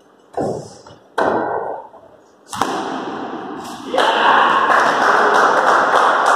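Two sharp thuds of a cricket ball being played, about a second apart. A click about two and a half seconds in is followed by a loud, even rushing noise that grows louder about four seconds in.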